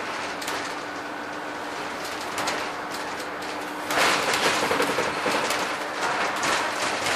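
Interior of a Scania N230UD double-decker bus on the move, heard from the top deck: a steady engine drone with rattling and squeaking from the bodywork and fittings. About four seconds in it gets louder and the rattling grows busier.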